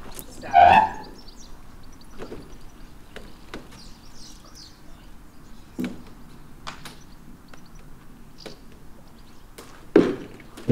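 Metal side ramp of a horsebox being lowered, with a short loud creak about a second in, followed by scattered knocks and thuds of a horse's hooves on the box floor, the loudest thud near the end as the horse steps down onto the ramp.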